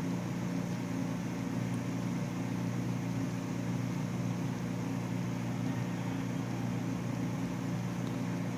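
Steady motor hum that comes on suddenly at the start and holds even throughout.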